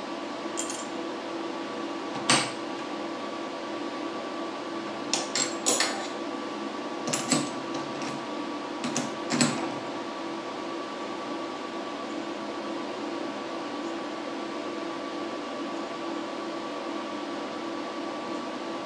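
Small hard parts clicking and knocking together as they are handled and fitted, a dozen or so light taps in small clusters during the first half, over a steady shop machine hum with a couple of constant tones.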